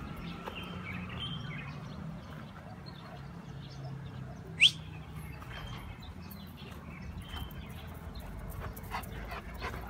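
Dog whining faintly off and on, with one short, sharp rising squeak about halfway through that is the loudest sound.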